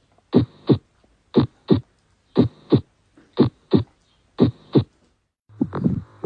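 Heartbeat: paired lub-dub thumps, the first and second heart sounds, about one beat a second. About five and a half seconds in, a different heart recording starts, with busier, irregular beats over a continuous hum.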